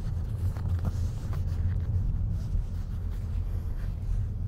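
Steady low rumble of a car being driven, heard from inside the cabin, with a few faint ticks over it.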